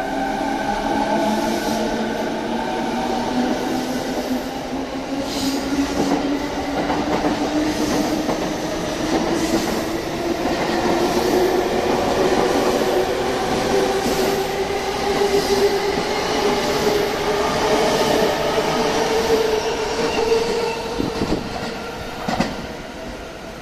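E217-series electric train pulling away from a station: its traction motors give a whine that climbs steadily in pitch as it gathers speed, with wheels clacking over rail joints as the cars roll past. The sound drops away near the end as the last car clears.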